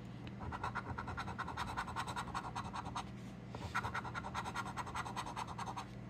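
A coin scratching the coating off a paper scratch-off lottery ticket in rapid back-and-forth strokes, in two spells with a short pause about halfway.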